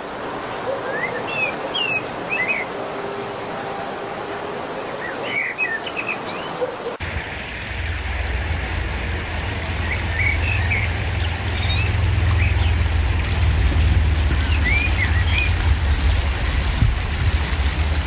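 Wild songbirds singing in short, scattered chirps over a steady background hiss. About seven seconds in the background changes abruptly and a low rumble joins it.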